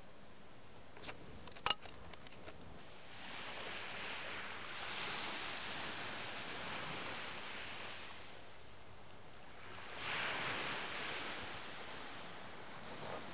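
Small waves washing up on a sandy beach, heard as two slow swells of hiss. A few sharp clicks come just before the first swell.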